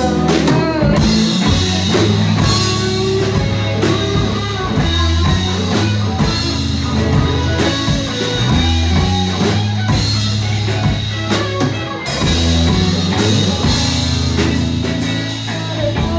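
Live rock band playing an instrumental passage with no singing: electric guitars and electric bass over a drum kit keeping a steady beat.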